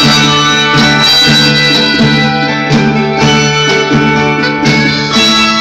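Handbell choir playing a piece: brass handbells rung in chords about every three-quarters of a second, the notes ringing on and overlapping.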